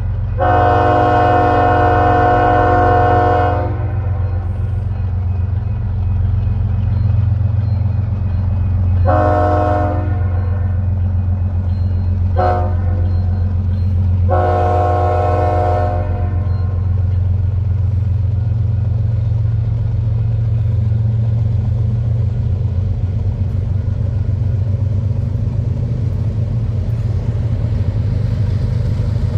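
Diesel freight locomotive sounding its air horn in the grade-crossing pattern (long, long, short, long) over the steady low rumble of the train. The first blast is the longest, and the horn falls silent about halfway through while the rumble carries on.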